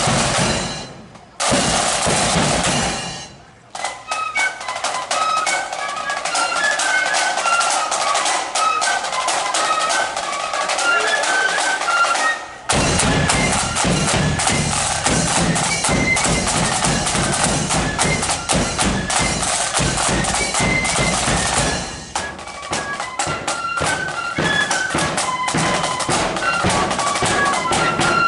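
Marching flute band playing: snare drums open with a roll, then a high flute melody comes in about four seconds in over the drums. The bass drum and full drum line come in heavily about halfway through.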